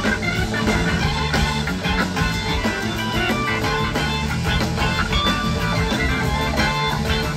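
Live rock band playing through a concert PA, heard from the audience: guitar and keyboards over a full band, sustained and continuous.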